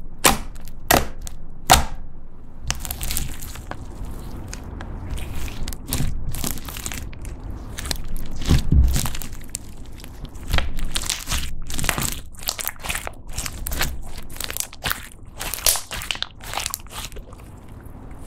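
Thick slime loaded with small crunchy bits being kneaded, poked and stretched by hand, giving sharp clicking pops and crackles. A duller thud comes about nine seconds in, with denser crackling after it.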